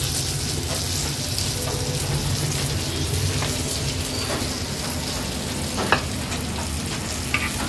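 Marinated hilsa (pala) fish pieces sizzling steadily in a shallow layer of oil in a nonstick pan over a medium gas flame. A couple of light clicks come near the end.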